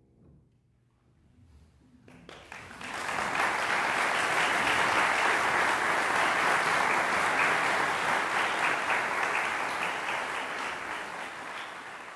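Audience applauding in a hall: after a moment of quiet, the clapping starts about two seconds in, quickly builds to full and holds, then begins to thin out near the end.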